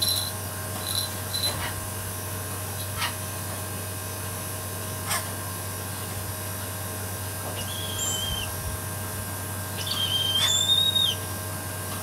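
Brahminy kite giving two high, drawn-out whistling calls, a short one about eight seconds in and a longer one a couple of seconds later, after a few light clicks in the first seconds.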